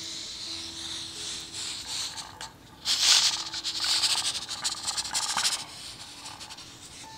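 Aluminium pressure cooker hissing as steam escapes from its lid, louder for about two and a half seconds from about three seconds in, then dying down.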